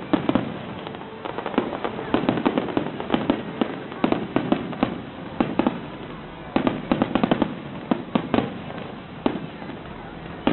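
Aerial fireworks display: volleys of sharp bangs and crackling come in quick clusters of several shots, with short lulls between them.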